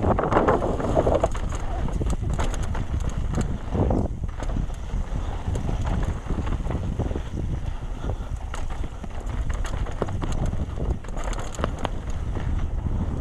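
Trek Session downhill mountain bike descending a root-strewn trail: steady wind rush on the microphone over a low rumble, with frequent sharp clicks and rattles from the bike hitting roots.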